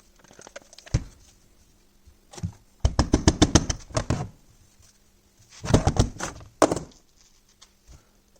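Hand work on a marine starter motor: a single knock, then two quick runs of rapid clicking and knocking, a second or so each, as metal parts and tools are handled.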